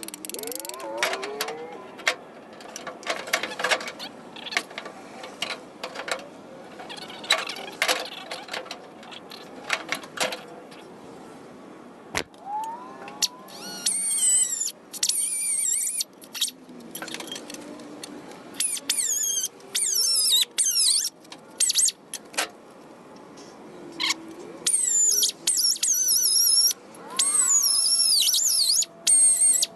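A power tool working the sheet steel of a truck body, squealing in repeated stop-start bursts that slide up and down in pitch through the second half, after a run of short clicks and knocks.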